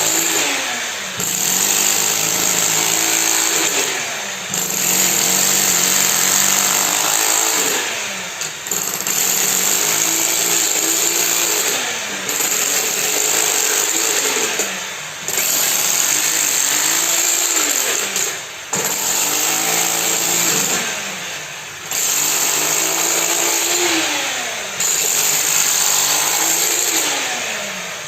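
A motor-driven machine working in repeating cycles about every three and a half seconds: each loud, hissing run ends with a dip and a falling whine as it slows, then it picks up again.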